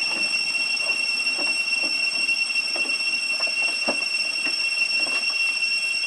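Steady high-pitched insect drone from the forest, holding one even pitch with a fainter higher overtone. Faint short sounds come now and then under it.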